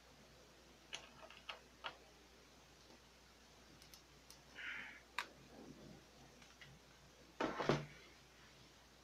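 Scattered light clicks and taps from handling the plastic and metal parts of an opened inkjet printer's carriage and paper-feed mechanism, with a brief scrape about halfway and a louder short clatter about seven and a half seconds in.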